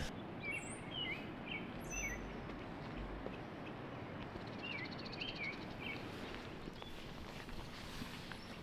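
Songbirds chirping: clusters of short down-slurred chirps about half a second in and again around five seconds in, with a brief buzzy trill, over a steady outdoor rush of background noise.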